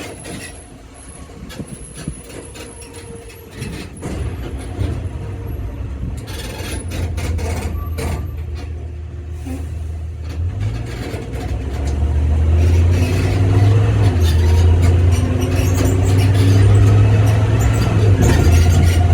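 Zoomobile tour tram driving along, its engine a low steady rumble that grows louder about four seconds in and again past the middle, as if pulling harder.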